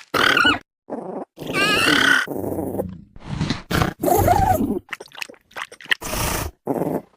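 Dinosaur sound effects for a Ferganocephale: a string of short grunting and growling calls with silent gaps between them. About two seconds in comes a wavering high-pitched call, and a run of quick short sounds comes a little past the middle.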